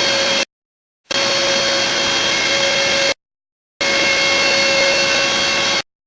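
Home-built CNC milling machine cutting, its spindle motor running with a steady whine over a rushing cutting noise. The sound stops dead twice, for about half a second each time, and resumes just as suddenly.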